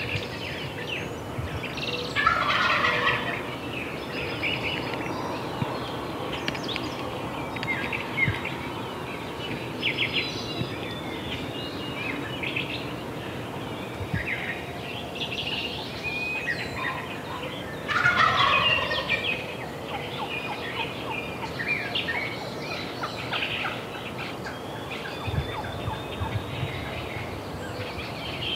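A Merriam's wild turkey gobbler gobbles twice, loudly, about two seconds in and again about eighteen seconds in, while songbirds chirp throughout.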